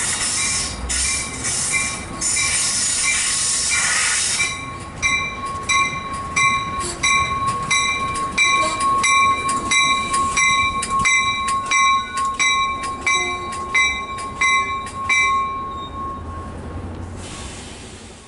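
Commuter train pulling into a station and slowing to a stop. A rush of rolling noise comes first, then a steady high brake and wheel squeal with sharp clicks about twice a second as the wheels cross rail joints. It all fades away as the train stops.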